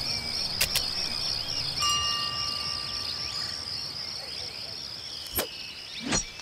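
Outdoor ambience: a steady, pulsing chorus of insects. A plain held tone sounds for about a second and a half, starting about two seconds in, and a few sharp clicks come near the end.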